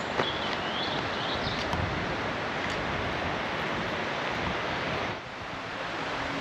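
Steady outdoor rushing noise, as of wind, with a few faint high chirps in the first second and a half; the noise dips briefly about five seconds in.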